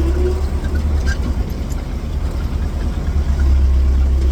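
Farm tractor engine running with a steady deep drone, easing off a little in the middle and picking up again about three seconds in.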